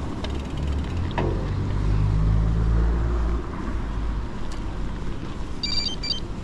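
Low rumble of a bicycle rolling over grass, with wind buffeting the microphone. A brief high chirp comes near the end.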